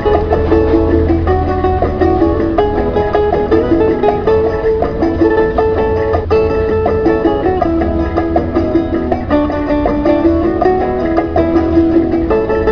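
Instrumental background music with a melody on plucked strings over a steady bass line.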